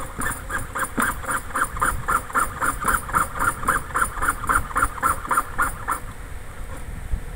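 Jeweler's piercing saw cutting a piece of brass with fast, even back-and-forth strokes, about four a second, stopping about six seconds in.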